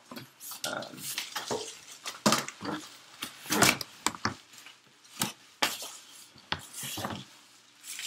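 Styrofoam packing and a cardboard box being handled as a boxed appliance is unpacked: an irregular run of rustling, scraping and knocks, loudest about two and a half and three and a half seconds in.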